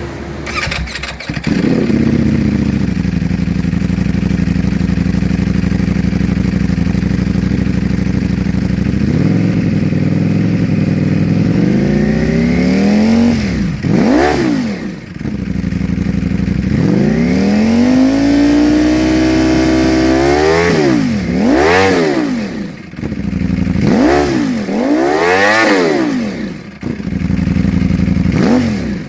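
Ducati Panigale V4's V4 engine breathing through an Akrapovic full-system exhaust: it starts about a second in and holds a high idle that settles lower around nine seconds, then is revved, first with a long climb and fall in pitch, then with a string of quick throttle blips.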